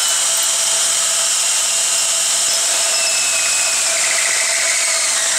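Electric drill running steadily under load as its bit bores a hole in steel. Over it a high whine slowly drops in pitch through the first four seconds or so.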